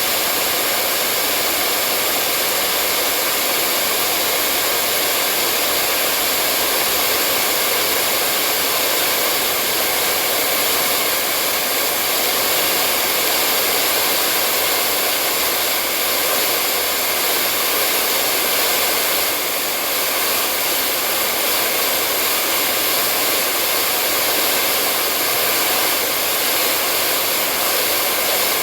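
Hair dryer blowing steadily, a constant airy rush of fan and motor noise with faint steady whine tones, used as white noise to lull a baby to sleep.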